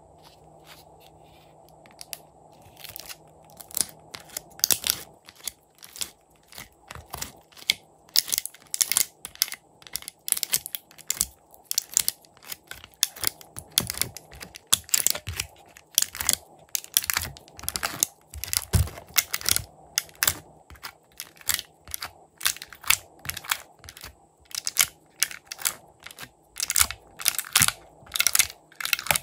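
Thin clear plastic tray crackling and crinkling in quick, irregular bursts as fingers press on it and peel soft pink filling out of its compartments, the crackles starting about two seconds in.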